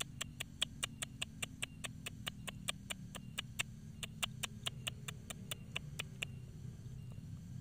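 A small animal's call: a rapid, very even train of sharp clicks, about six a second, over a low steady rumble.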